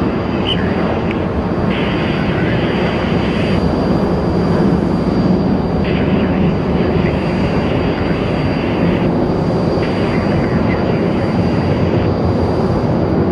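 Boeing 737 jet engines running at high power, as on a takeoff roll: a loud, steady rumble with a constant high whine over it.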